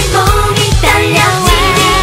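Upbeat K-pop dance song: female group vocals sung in Korean over a steady electronic dance beat.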